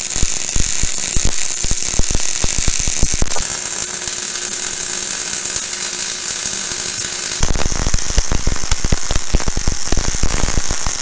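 MIG welder running a bead on the corner of a steel axle truss: a continuous fast crackling arc over a steady hiss, smoother for a few seconds in the middle and more crackly again towards the end.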